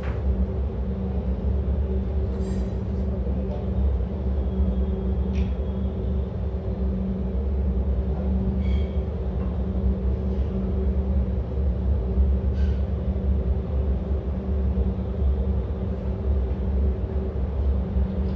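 Paint spray booth ventilation running, a steady low rumble with a hum, with a few faint clicks and taps.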